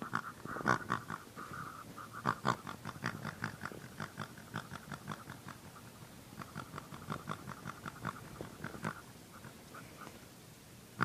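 A pig grunting and snorting in its sleep, in quick runs of short squeaky grunts with brief pauses between the runs.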